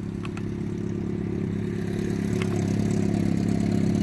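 Engine sound from a 2001 Toyota Sienna's 3.0-litre V6, steady and growing gradually louder.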